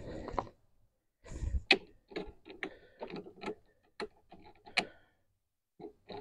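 Irregular clicks, taps and rattles of plastic and metal parts being handled on a new self-propelled walk-behind lawn mower, with a low thump at the start and another about a second and a half in.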